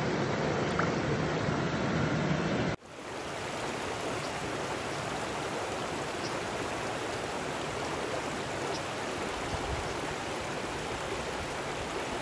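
Mountain stream water rushing over rocks, a steady noise. For the first three seconds the water is close by and louder, with more low rumble. After a sudden break it settles into an even rush from a small riffle.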